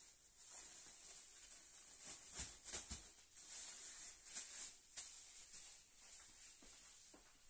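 Faint crinkling and rustling of a thin plastic bag being wrapped around a ball of dough, with scattered small crackles.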